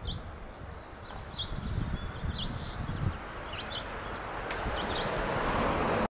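Male house finch giving short chirp contact calls, about half a dozen, some in quick pairs, over a steady low rumble; a hiss builds near the end.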